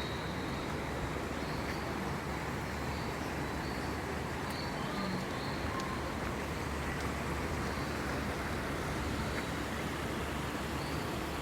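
Ambience of an indoor tropical rainforest hall: a steady low rumble and hiss, with short high bird chirps now and then.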